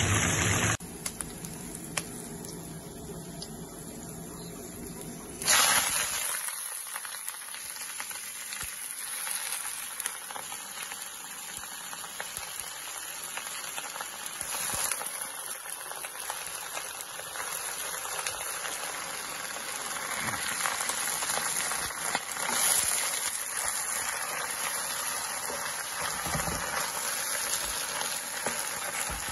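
Hot oil sizzling in a wok around a breaded pork cutlet as it deep-fries. About five seconds in, a sudden louder burst gives way to a steady, dense sizzle as leafy lettuce stir-fries in the hot oil.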